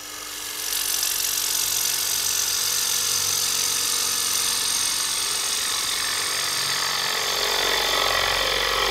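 Spindle gouge cutting a maple workpiece spinning on a wood lathe: a steady, hissing shear of wood as long shavings peel off. The hiss builds over the first second, then holds even.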